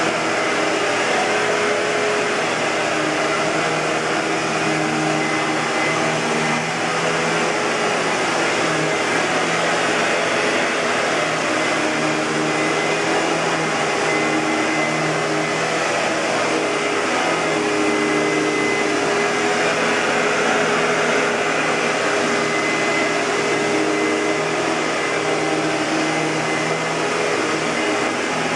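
A 2006 Hoover WindTunnel Bagless twin-chamber upright vacuum cleaner (U5753-900) running steadily. Its motor and airflow make a continuous rushing noise with a faint high whine.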